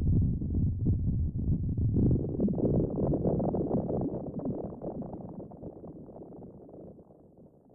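Elektron analog synthesizer playing a preset: a low, dense sound that grows brighter about two seconds in, then fades away slowly toward the end.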